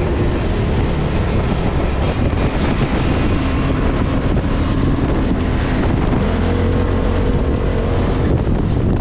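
Side-by-side UTV driving on sand, its engine running steadily at cruising speed, heard from the driver's seat. A steadier engine tone comes through more clearly about six seconds in.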